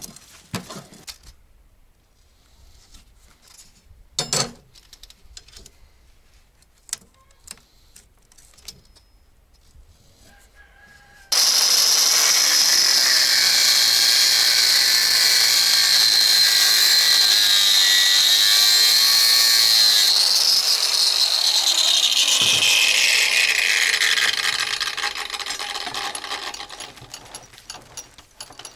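Scattered clicks and knocks of handling work. Then a power tool's electric motor starts suddenly at full speed with a high whine, runs steadily for about nine seconds, and is switched off, spinning down with a falling pitch over several seconds.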